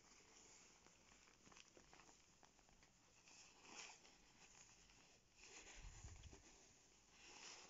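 Faint rustling of a shiny nylon puffer jacket's shell as a hand rubs and presses it, in several soft swishes, with a soft low thud about six seconds in.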